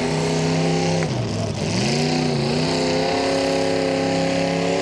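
The engine of a 1,850 lb mini modified pulling tractor running hard at high revs as it drags the sled. About a second in the revs dip and waver, then climb back and hold high and steady.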